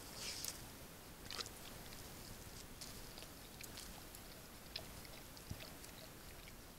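A dog licking at hot fish and potatoes in a stainless steel bowl, still too hot to eat: faint scattered wet licks and small clicks.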